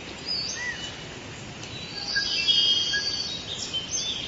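Birds chirping and whistling: many short notes and a brief trill over a steady background hiss, busiest in the middle.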